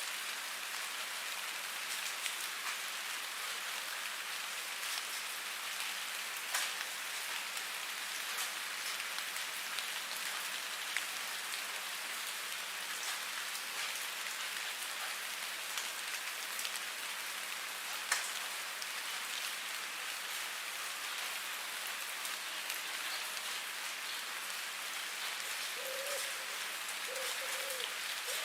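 Steady rain falling, an even hiss with scattered louder drops tapping on a surface, one sharper tap about two-thirds of the way through.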